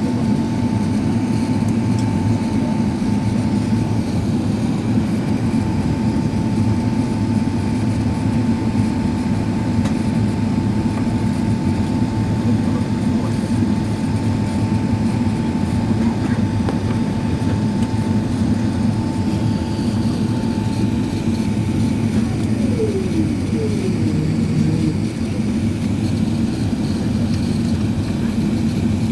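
Steady low rumble of an Airbus A380 heard from inside the passenger cabin: engine and airflow noise. A steady whine runs over it and stops about 22 seconds in, falling in pitch as it dies away.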